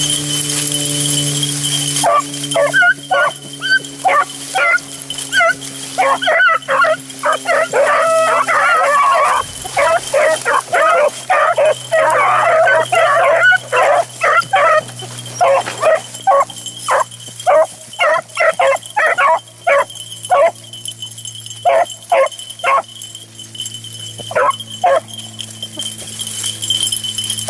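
A pack of beagles baying on a rabbit's scent: several hounds barking and bawling in short, overlapping calls. The calls start about two seconds in, come thickest in the middle and thin out toward the end.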